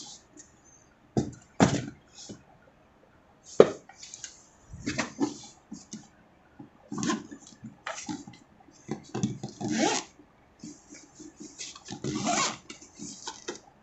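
Hands handling a fabric-covered hard carrying case: scattered sharp taps and rubbing against the case, then a zipper being drawn open along the case's edge near the end.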